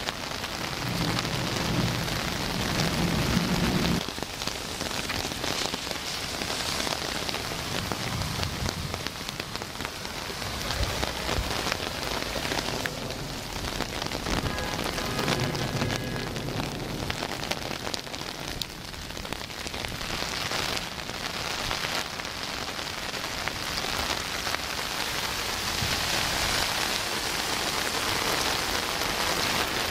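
Heavy rain pouring down and pattering on an umbrella overhead: a dense, steady hiss, with a low rumble now and then.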